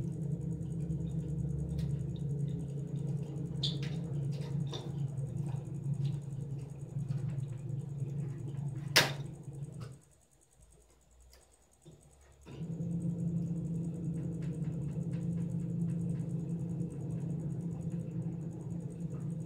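Washing machine motor humming steadily as it runs, stopping for about two seconds near the middle and then starting again. A single sharp click comes about nine seconds in.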